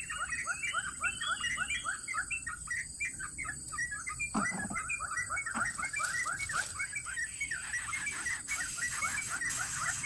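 Nestling birds begging at the nest while an adult greater coucal feeds them: a rapid, steady series of short high chirps, about five a second, with one longer call about four seconds in that falls steeply in pitch.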